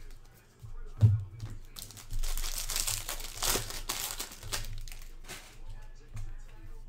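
Foil wrapper of a baseball card pack crinkling and tearing as it is ripped open, for about two seconds, after a short knock about a second in.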